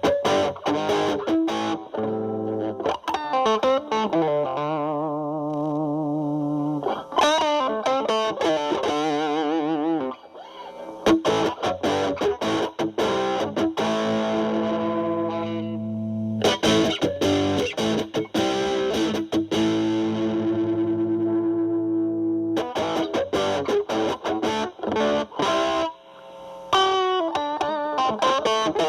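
Distorted electric guitar: a Fender Stratocaster through a Boss DS-2 Turbo Distortion pedal in turbo mode, into a Marshall Valvestate amp's clean channel, with the distortion knob at about 11 to 12 o'clock. Improvised lead lines with held, wavering vibrato notes and sustained chords, with short breaks about ten seconds in and near the end.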